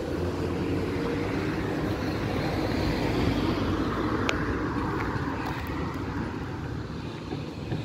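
71-605 (KTM-5M3) tram pulling away from the stop and running off along the rails, its sound slowly fading as it recedes, with one short click about four seconds in.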